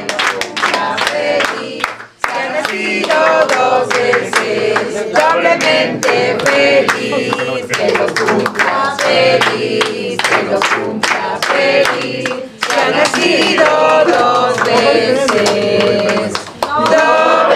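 A group of people singing a birthday song together, clapping along in time, with brief breaks between lines.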